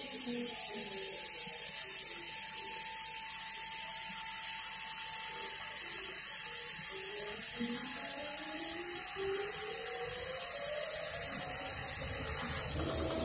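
CO2 laser cutter slowly cutting a circle in thick acrylic. The gantry's stepper motors whine in two tones that rise and fall against each other as the head travels round the curve, over a steady air-assist hiss.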